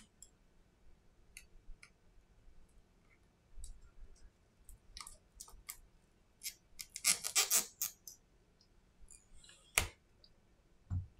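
Small clicks, ticks and scrapes of a hand tool working at the lower edge of an opened iPhone 7's battery. A burst of scratching comes about seven seconds in, and a single sharp click follows near the end.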